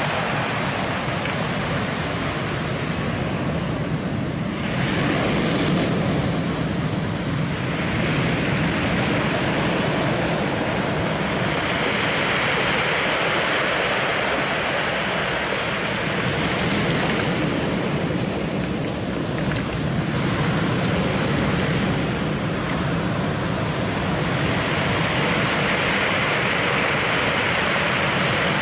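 Sea surf breaking on a cobble beach: a steady wash that swells several times as waves come in.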